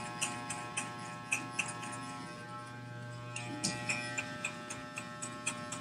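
Corded electric hair clippers running with a steady buzzing hum, with short crisp clicks scattered over it as the blade cuts into hair on a fade. The clicks thin out for about a second in the middle.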